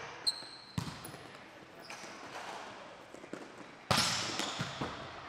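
A volleyball being hit and bouncing in a sports hall: sharp smacks that echo in the room, the loudest about four seconds in. There is a brief high squeak near the start.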